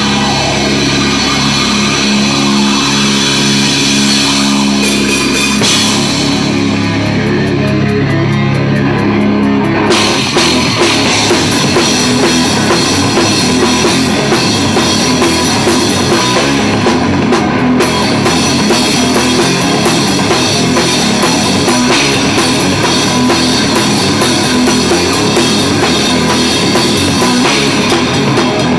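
Live rock band playing amplified electric guitars and a drum kit. Held notes ring out for the first ten seconds, then the full band comes in with a dense, driving drum beat.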